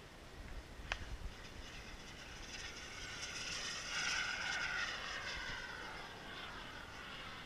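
Turbine engine of a Falcon 120 radio-controlled model jet flying past: a jet whine that swells to its loudest a few seconds in, then drops in pitch and eases off as the jet passes.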